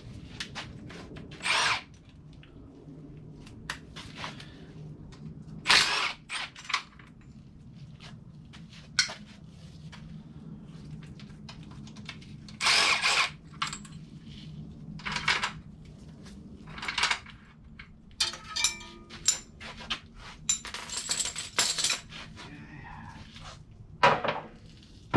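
Metal hand tools and sockets clanking and clicking as an engine is worked on, with several louder bursts of about half a second and a steady low hum underneath.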